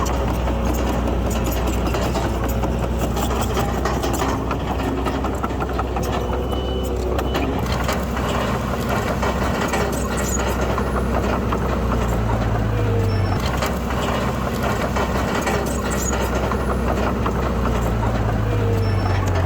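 Heavy earthmoving machinery's diesel engine running steadily under rattling and crackling, its note strengthening briefly about twelve seconds in and again near the end.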